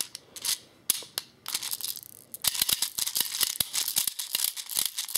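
6mm plastic BBs clicking and rattling as a speed loader pushes them into an airsoft pistol's double-stack magazine. A few separate clicks come first, then from about halfway in a fast, dense run of clicks.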